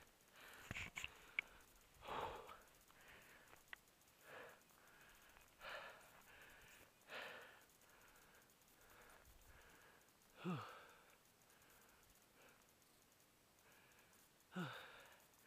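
Faint, hard breathing of a hiker walking downhill: short breathy exhales every second or two, with two voiced sighs that fall in pitch, one about ten seconds in and one near the end. A few small clicks are heard.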